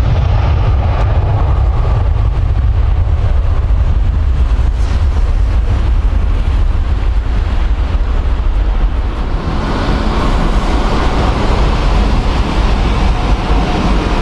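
Turkish Airlines Airbus A330's jet engines at take-off power, a loud deep rumble as the airliner rolls away down the runway. About ten seconds in, the sound changes to the steadier, brighter running of a narrow-body jet's engines as it taxis.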